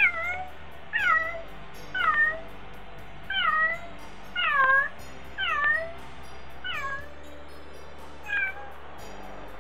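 A domestic cat meowing over and over, eight short meows about a second apart, each dropping sharply in pitch and then turning up; the last one is fainter.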